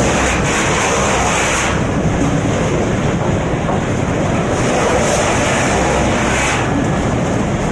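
Disc wood chipper running with a loud, steady machine noise. Harsher high-pitched noise rises twice, near the start and again about two thirds of the way through.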